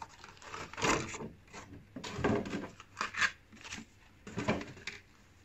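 Clear plastic packaging crinkling and rustling in a series of short, irregular bursts as a paper-wrapped flower bouquet is lifted out of its case and handled.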